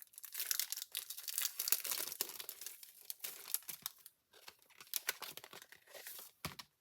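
Paper crinkling and rustling as it is handled, a dense run of quick crackles with a short pause partway through.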